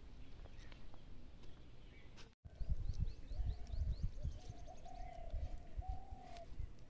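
Birds calling: a quick run of short chirps, then a longer wavering call lasting about three seconds, over low rumbling on the microphone.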